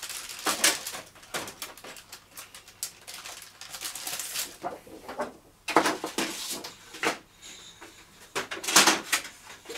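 Paper rustling and crackling as packs of paper are handled on a shelf and a sheet is fed into a printer's rear tray. It comes in irregular bursts, with the two loudest in the second half.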